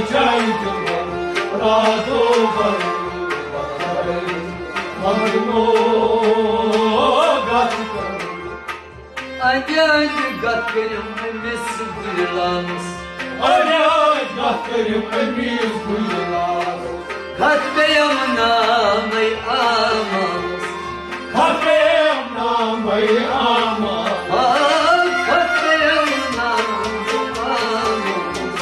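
Sufi devotional song (kalam) performed live: a male voice singing in long melodic phrases, accompanied by harmonium and plucked strings, over a steady hand-drum rhythm.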